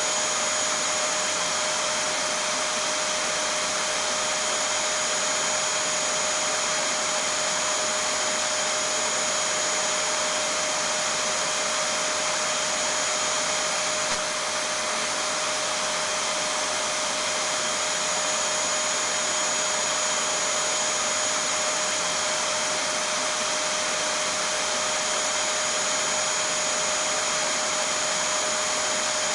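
Vacuum cleaner running steadily: an even rushing noise with a steady motor whine on top, unchanging apart from one brief dip about halfway through.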